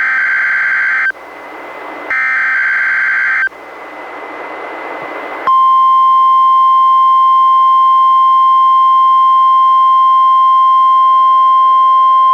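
NOAA Weather Radio Required Weekly Test: the last two bursts of the SAME digital header, harsh screeching data tones about a second and a half each with receiver hiss between, then about five and a half seconds in the steady 1050 Hz warning alarm tone starts and holds.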